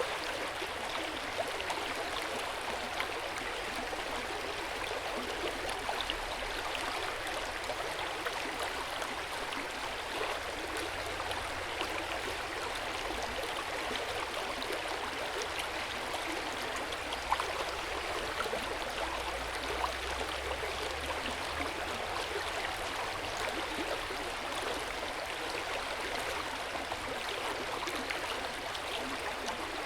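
Hot spring water running steadily into an open-air bath, with a continuous splashing flow and small scattered drips.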